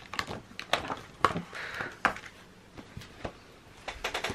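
Paper handling: pages of a paper cut-out book being turned and shifted, with light clicks and taps, a short rustle a little over a second in and a quick run of clicks near the end.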